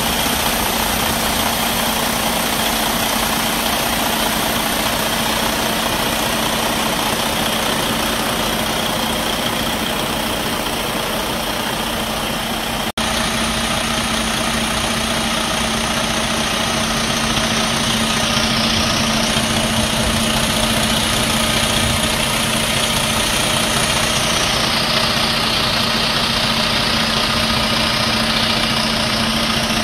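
Detroit DD13 inline-six diesel of a Western Star 4700SB dump truck idling steadily, heard up close at the open engine bay. The sound drops out for a moment about halfway through.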